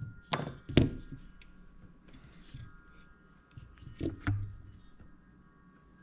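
Hand tools and parts knocked and clicked on a workbench while drone wires are cut and stripped: two sharp knocks in the first second and two more about four seconds in, over faint steady tones.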